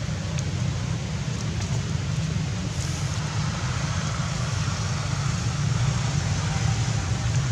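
Steady outdoor background noise: a low rumble with an even hiss above it and a few faint ticks.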